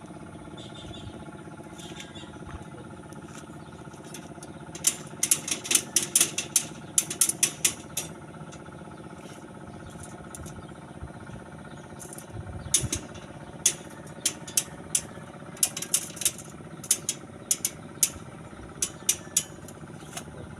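Quick runs of sharp taps and knocks from construction work, over a steady engine-like hum. One dense cluster comes about five seconds in, and a looser string of single knocks runs through the last third.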